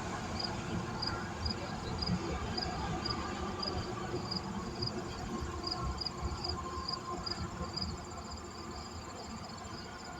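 Insect chirping in an even rhythm, about two to three high chirps a second, over a steady low rumble of traffic.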